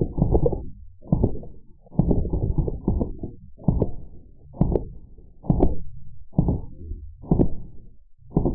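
Drozd Blackbird full-auto BB gun shots played back in slow motion: short clusters of low, muffled thuds coming roughly once a second.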